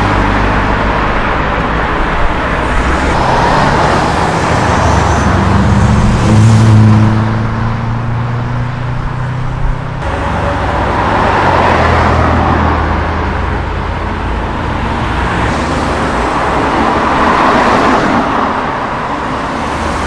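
Cars accelerating past one after another: first a Mercedes-AMG A45's turbocharged four-cylinder pulling away, its engine note rising and loudest about six to seven seconds in, then a BMW 6 Series Gran Coupé accelerating by in the second half, with tyre and traffic noise underneath.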